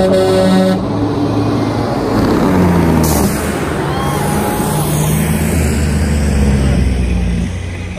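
Semi truck driving slowly past close by with its diesel engine running, and a burst of air-brake hiss about three seconds in.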